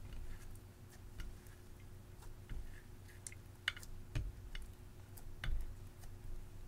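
Clear slime mixed with crushed eyeshadow being kneaded and squeezed by hand in a glass dish: irregular small clicks and pops as it is pressed and pulled, with a few soft thuds.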